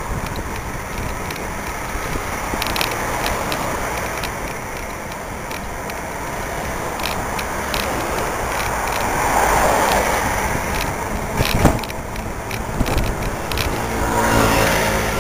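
Steady road noise and passing urban traffic heard from a moving bicycle, with a sharp knock a little past halfway and a vehicle engine growing louder near the end.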